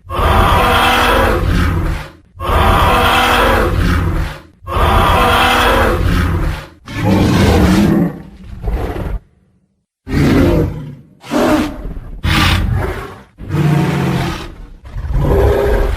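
Tyrannosaurus rex roar sound effects: a series of loud, deep roars of about two seconds each, then after a brief silence near the middle a run of shorter roars, grunts and one shrill screech.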